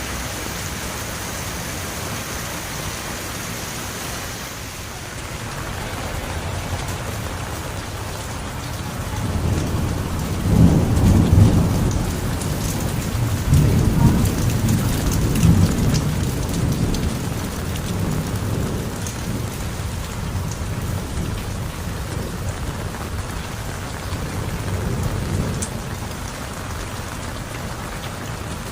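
Steady heavy rain, with a long roll of thunder that swells about a third of the way in, peaks for a few seconds and slowly dies away.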